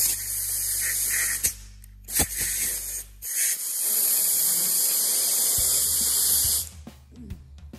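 Compressed air hissing loudly from an air-hose quick-connect coupler while it is being pushed onto the pneumatic stapler's fitting: a spurt of about a second and a half, two short bursts, then a steady blast of about three seconds that cuts off sharply. The coupler is not yet seating, so air escapes until it locks on.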